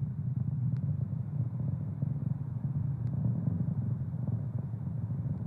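Steady low rumble of the Falcon 9 first stage's nine Merlin engines firing in powered ascent, as heard through the rocket's onboard camera.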